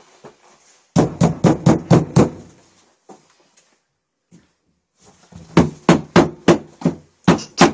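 Rapid knocking on a bedroom door: a run of about six knocks about a second in, then a second, longer run of about eight knocks from about five and a half seconds in.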